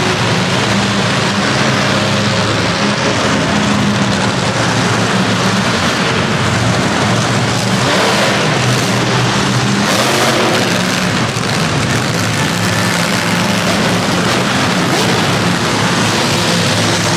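Monster truck engines running loud and steady: a low engine note under a wash of noise.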